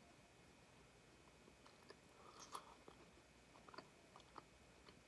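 Faint biting and chewing of a piece of stuffed Cheez-It pizza: a scatter of small clicks starting about two seconds in.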